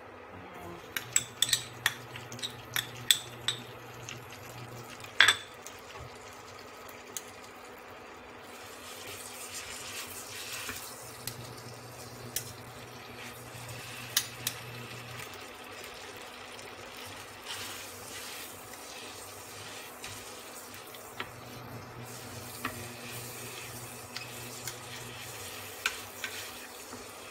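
Metal spoon clinking and scraping against a small cup and the rim of a nonstick frying pan as a spoonful of ssamjang paste is scraped out, with several sharp clicks in the first few seconds. The paste then sizzles as a steady hiss in the hot pan, with occasional spoon taps. A low hum from the induction cooktop comes and goes.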